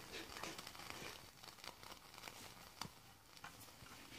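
Faint, irregular small clicks and ticks from the Mamod SE3 twin-cylinder model steam engine as its crank and flywheel are turned by hand, the engine not yet running on its own steam.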